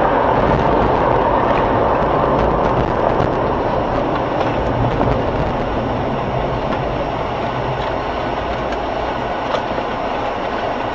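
Steady road and engine noise inside a moving car, picked up by a dashcam microphone, with a few faint knocks and one slightly louder knock near the end.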